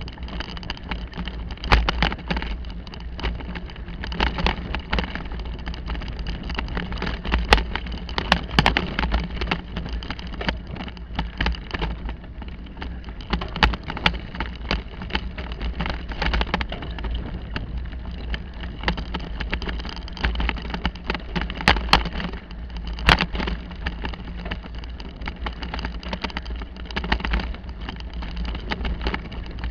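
Bicycle ridden along a dirt forest trail: steady wind rumble on the microphone and tyre noise, with frequent sharp knocks and rattles from the bike as it goes over bumps.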